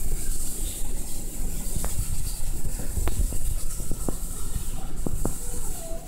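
Reef aquarium pumps and circulating water: a steady low rumble with a hiss above it and scattered faint clicks.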